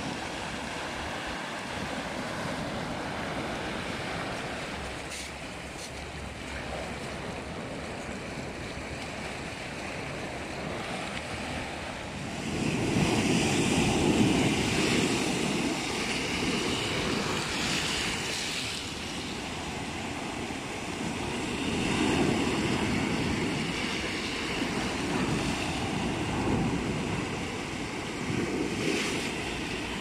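Mediterranean Sea waves washing over and breaking against flat shore rocks: a continuous rush of surf that surges loudest about halfway through and swells again several times near the end.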